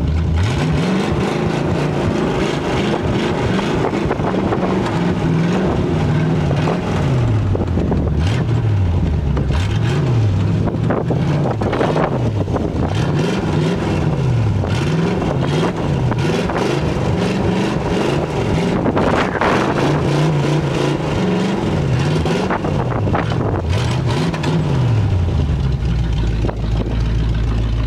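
Hot rod's engine revving up and falling back about a dozen times as it is driven hard through donuts on snow, then settling to a steady idle near the end.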